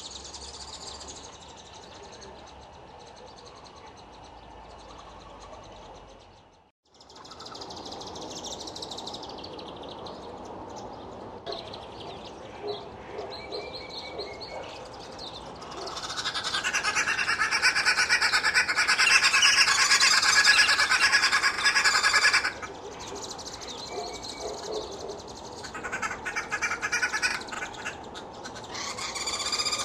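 Red-billed wood hoopoes calling in a rapid, dense chattering chorus, loudest from about halfway through for several seconds and starting up again near the end. Quieter chatter comes before it, with a short break in the sound about seven seconds in.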